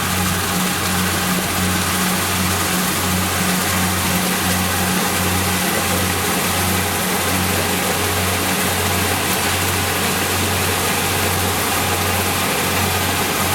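Kubota DC60 combine harvester running steadily: a loud engine hum with a regular low throb, a little faster than once a second, over a constant wide mechanical hiss.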